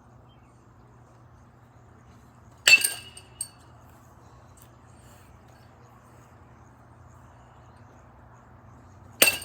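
Marucci CAT X Connect USA baseball bat hitting a ball twice, each contact a sharp ringing ping about six and a half seconds apart, each followed by a couple of fainter clicks.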